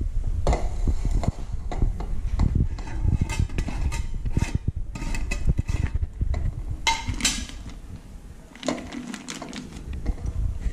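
Clinks and knocks from a glass storage jar and its lid being handled, with the crinkle of a plastic bag of brown sugar inside it and a few bumps.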